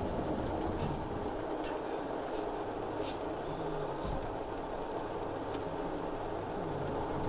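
An automatic car wash working over the car, heard from inside the cabin: a steady rush of water spray and wash machinery, with a few light ticks.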